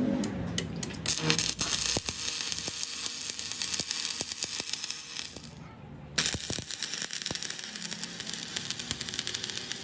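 Metal being worked in a machine shop: a harsh rasping, hissing noise with irregular metallic clicks, in two long bouts with a short break a little past the middle.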